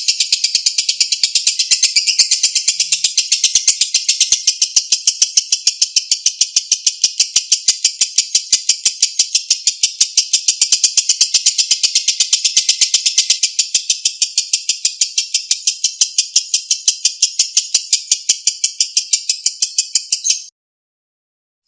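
Lovebird singing 'ngekek': one long, unbroken run of rapid, sharp chattering notes in quick even succession. It cuts off suddenly near the end.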